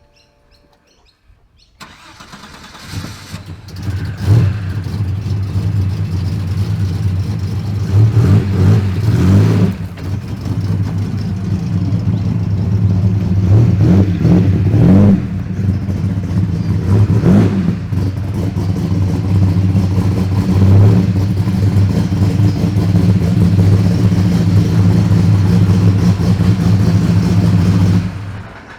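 Turbocharged Holden Commodore's Ecotec V6 starting about two seconds in, then running at idle with several short blips of revs. The sound cuts off abruptly near the end.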